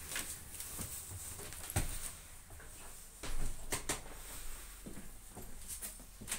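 Footsteps and irregular knocks and clicks of people moving through a small boat cabin with wooden floorboards.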